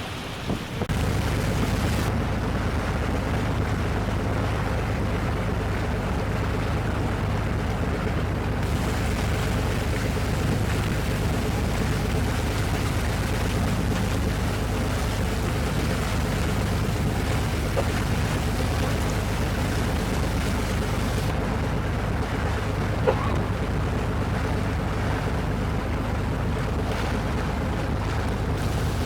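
Tour boat under way: a steady low engine drone mixed with wind and rushing water, with one brief knock about two-thirds of the way through.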